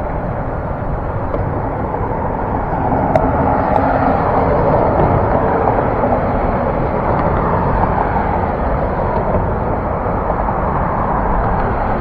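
Ford F-150 pickup's engine running steadily after being refuelled with chainsaw gas, with a single click about three seconds in.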